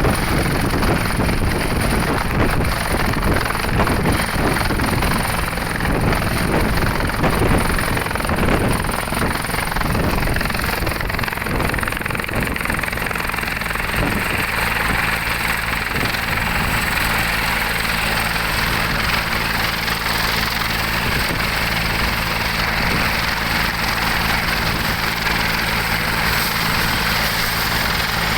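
Helicopter running steadily nearby, a high turbine whine over a low rotor drone, with strong rotor wash gusting across the microphone during the first ten seconds or so.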